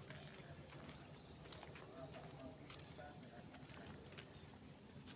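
Faint outdoor ambience: a steady high-pitched insect drone with a low background rumble and faint distant voices.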